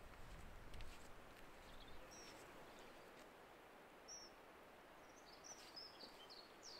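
Near silence: faint outdoor ambience with a soft steady hiss, and a few short, high bird chirps about two seconds in, about four seconds in, and in a quick cluster near the end.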